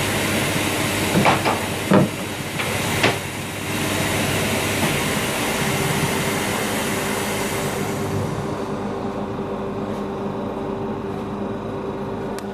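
Wadkin table saw running free with its dust extraction, a steady machine hum and hiss. A few sharp knocks of wood boards being handled come in the first three seconds, and the high hiss thins out after about eight seconds while the hum goes on.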